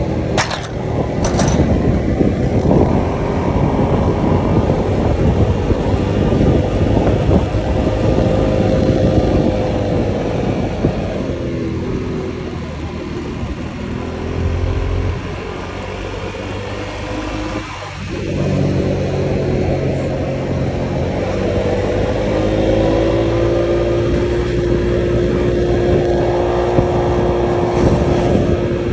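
Honda Click scooter's engine running on the road, its pitch rising and falling as the rider speeds up and slows down, over a steady rush of road noise. Two sharp knocks come in the first second and a half.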